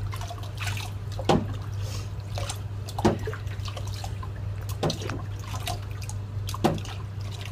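Sponge-rinsing a wet puppy in a stainless steel kitchen sink to get the shampoo suds out: water trickling and dripping, with a short splash about every two seconds as the sponge is dipped and squeezed. A low steady hum runs underneath.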